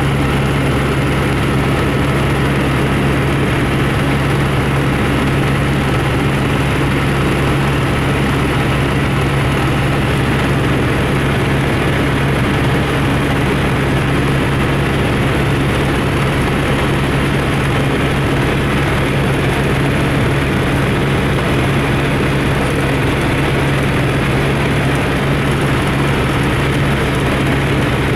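Steady drone of a small aircraft's engine, heard from inside the cabin, with a strong low hum that holds an even pitch and level throughout.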